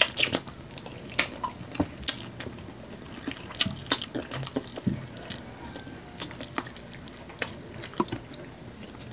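Wet mouth sounds of two people eating saucy chicken feet adobo by hand: lip smacks and chewing, a string of short clicks at irregular intervals.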